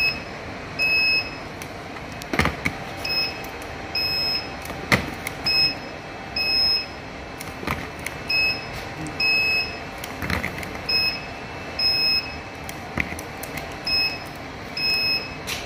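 Handheld induction cap sealer beeping as its head is pressed onto plastic engine-oil bottle caps: a short high beep about once a second. A sharp knock comes every two to three seconds as the sealing head is set down on the next cap.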